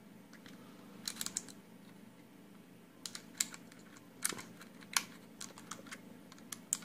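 Cherry MX Brown mechanical keyboard switch with a keycap fitted, pressed repeatedly: light tactile key clacks with no click, a few close together about a second in, then a string of single presses from about three seconds on.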